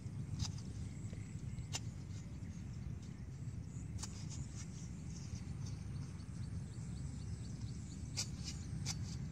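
Open-air rural ambience: a steady low rumble, with a few faint sharp clicks now and then.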